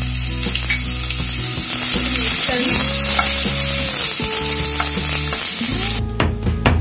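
Sliced onions and bay leaves sizzling as they fry in hot oil in a kadhai, stirred with a wooden spatula. The sizzling stops about six seconds in, followed by a few sharp knocks.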